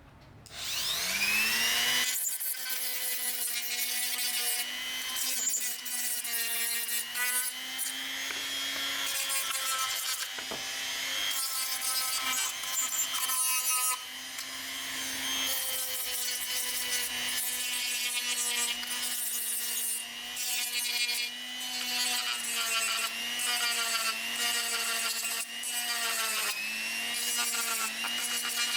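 A small electric power-tool motor spinning up over the first two seconds, then running with a steady whine whose pitch dips briefly every so often as it is loaded, with a gritty rubbing noise on top.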